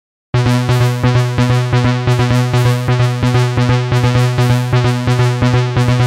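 Electronic background music: synthesizer notes over a held low tone, with a quick, even pulse. It starts abruptly a moment after the opening silence.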